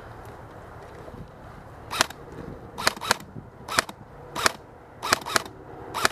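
Airsoft rifle firing about eight single shots at an uneven pace, some in quick pairs, starting about two seconds in, each a sharp crack.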